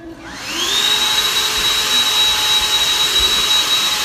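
Cordless handheld vacuum cleaner switched on: its motor spins up with a rising whine, then runs steadily at a high, even whine with a rushing hiss of air.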